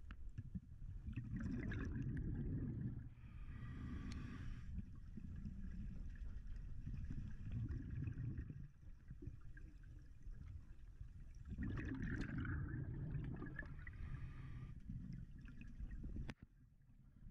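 A scuba diver breathing through a regulator, heard underwater. There are two rounds of exhaled bubbles rumbling and gurgling, about a second in and again about twelve seconds in. A hiss of inhaled air through the regulator comes after the first round, all over a steady low underwater rumble.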